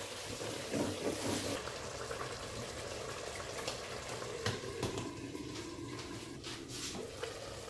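Egusi soup simmering in a stainless steel pot, a steady soft bubbling hiss, with a few light clinks partway through as a glass lid is set on the pot.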